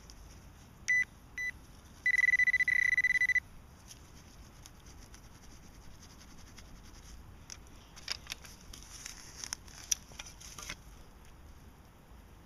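Metal detector sounding on a buried target: two short high beeps, then a steady high tone for about a second and a half. Later, gloved fingers scrape and crunch through loose soil.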